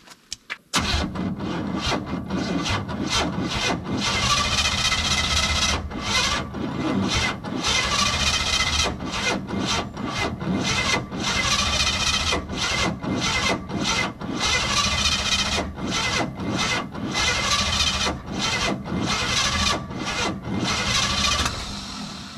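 Newly installed GM starter motor cranking the engine over, a rasping, grinding sound with many brief drop-outs, without the engine catching.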